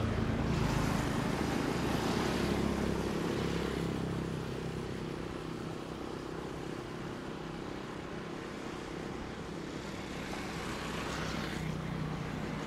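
Distant jet airliner engines at low taxi power: a steady rumble and hiss, a little quieter in the middle.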